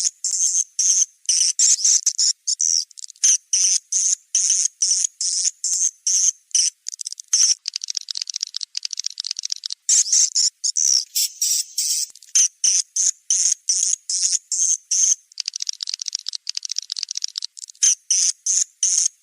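Swiftlet calls: rapid, high-pitched chirping twitters in short bursts about three times a second, running together into continuous trilling in places. This is the recorded swiftlet sound that swiftlet farmers play to draw the birds into a nesting house.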